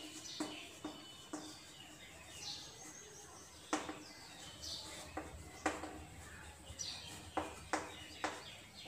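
Chalk tapping and scratching on a chalkboard as words are written: a string of sharp, irregular taps, fairly quiet, with short high chirps sounding between them.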